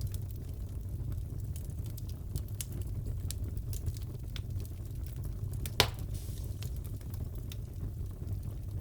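Wood fire crackling in a fireplace: scattered small snaps and pops over a low steady rumble, with one louder pop about two-thirds of the way in.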